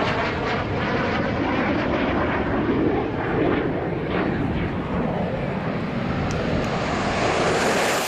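Aircraft engine noise, loud and steady, with a rushing roar and a faint set of whining tones early on that fade away.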